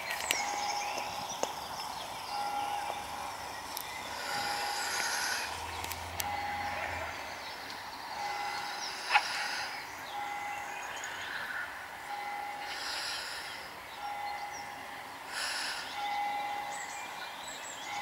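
Holy Trinity Church bells ringing, heard at a distance across the river, with a bell note about every two seconds. A single sharp click about halfway through.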